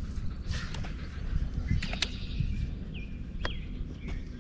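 Short whistled bird chirps about three seconds in, over a low steady rumble and a few sharp clicks.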